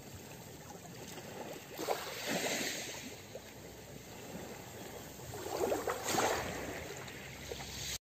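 Small waves washing up a pebble beach, twice: each wave comes in with a hiss and the rattle of pebbles stirred by the water, about two seconds in and again about six seconds in. Between the waves, low steady wash of the calm sea.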